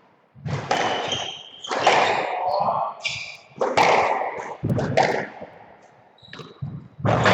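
Squash rally: the ball is struck by rackets and smacks off the court walls several times, each hit ringing briefly in the enclosed court, with short high squeaks of shoes on the wooden floor between shots.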